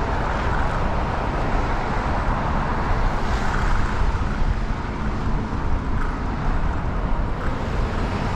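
Steady rush of wind and road noise from riding a Ninebot Max electric scooter at speed, with car traffic going by on the road alongside.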